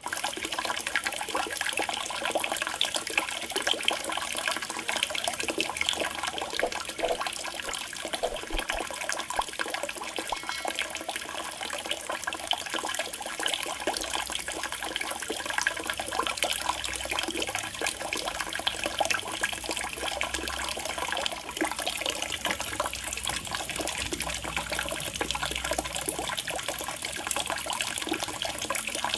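Water trickling and splashing steadily into a fish pond.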